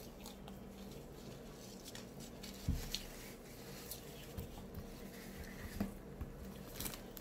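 Quiet eating of a fried egg roll: soft wet chewing sounds and small mouth clicks, with a single low knock about two and a half seconds in.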